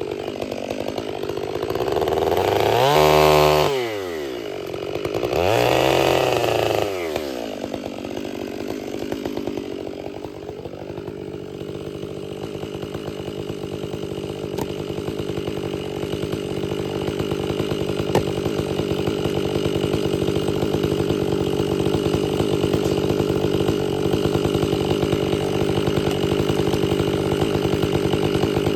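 Stihl 500i two-stroke chainsaw revving up and back down twice, then running steadily at full throttle as it bucks through a log on a freshly hand-filed chain.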